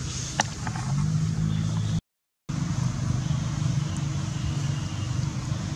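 A motor engine running steadily with a low hum, a single sharp click about half a second in. The sound cuts out completely for half a second around two seconds in.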